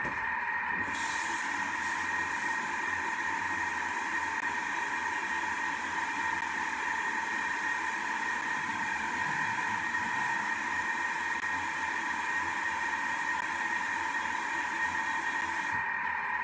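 Thermomix food processor running its sauté of butter and chopped vegetables: a steady whine with hiss, unchanging throughout.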